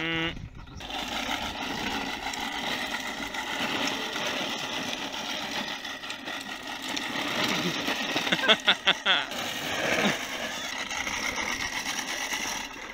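Reel push mower, mounted as a bicycle's front wheel, rolling along with its cylinder blades spinning in a steady mechanical whir. A brief loud burst of voice comes a little past the middle.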